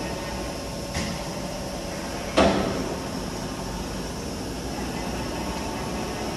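Steady background noise of a factory shed, with a light click about a second in and a louder knock about two and a half seconds in that rings briefly.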